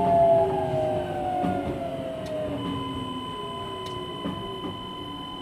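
Kanazawa Seaside Line 2000 series train's Toyo IGBT-VVVF inverter whining in several tones that slowly fall in pitch as the train slows. About halfway in this changes to a steady high whine. A few light knocks from the guideway come through under the whine, and the sound slowly gets quieter.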